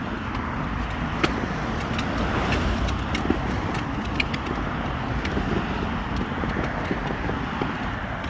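Steady vehicle and road noise, with a few light clicks and taps scattered through it.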